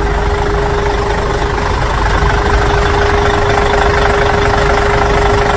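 Heavy truck engines running in a container port yard: a loud, steady rumble with a single steady tone held over it.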